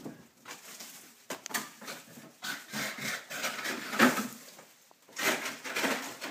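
Irregular scraping and rustling at an open chest freezer as frost and packed freezer snow are handled inside it, in uneven bursts with the loudest about four seconds in.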